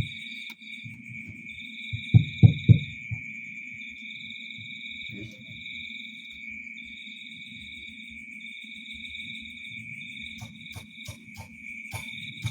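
Steady high insect chirring, one continuous tone under a second that pulses on and off about once a second. Three deep thumps come about two seconds in, and a quick run of sharp clicks near the end.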